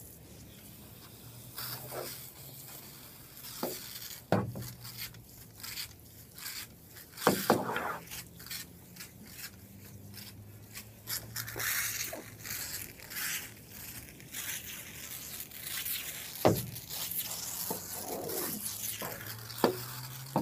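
Water-fed pole brush scrubbing against window glass and aluminium frames, an irregular rubbing and scraping with a few sharper knocks as the brush head meets the frame.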